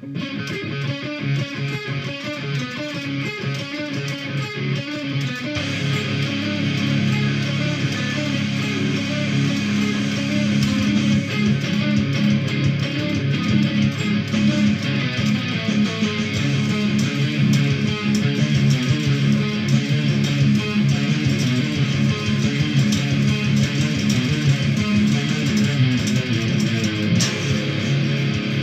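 Metal music led by electric guitar, with a heavier, fuller low end coming in about five seconds in.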